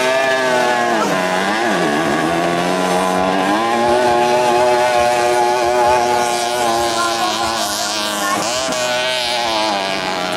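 50 cc two-stroke racing moped engine running at high revs. The revs dip and climb back about a second in, hold steady, then dip and pick up again near the end.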